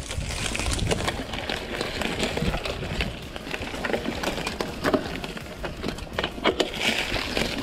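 Mountain bike ridden along a dirt trail: many irregular clicks and rattles from the tyres and frame over a steady rush of noise.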